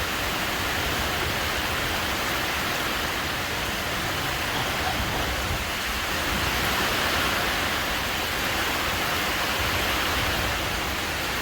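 Strong storm wind blowing with rain, a steady rushing noise that swells a little about seven seconds in.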